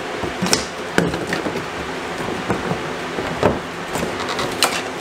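Flat sheathed electrical cable being dragged out through holes drilled in wooden wall studs: rubbing and scraping, with a few sharp knocks against the wood.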